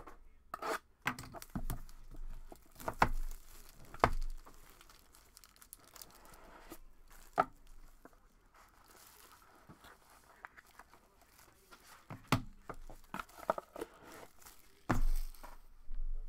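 Wrapping being torn and crinkled as a sealed box of trading cards is opened, with scattered sharp knocks and taps from handling the box. The loudest knocks come about three and four seconds in and near the end.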